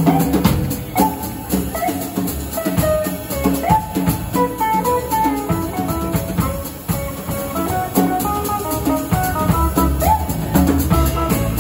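Live jazz trio: electric guitar playing a melodic line of short notes over double bass and a drum kit with cymbals. The bass grows stronger about eight seconds in.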